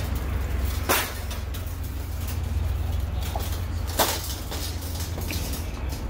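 Two sharp metallic clacks about three seconds apart as the folding fire pit's metal plates are handled, over a steady low rumble.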